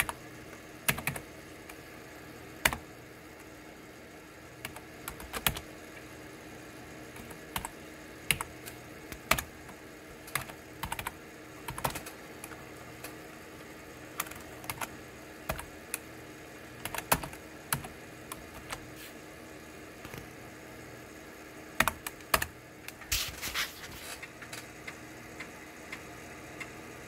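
Computer keyboard typing: irregular single key clicks and short runs of keystrokes, with a quick flurry a little over twenty seconds in, over a steady low hum.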